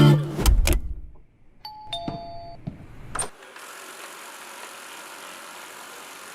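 Music ends within the first second. Then a two-note electronic chime sounds briefly, a higher tone followed by a lower one. A click follows, then a steady faint hiss.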